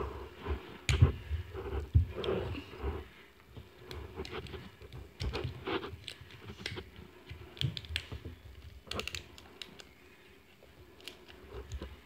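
Fingers and fingernails picking and peeling at the wrapping seam of an L.O.L. Surprise ball, making irregular crinkling, scratching and clicking, with a short lull near the end. The seal is hard to get open.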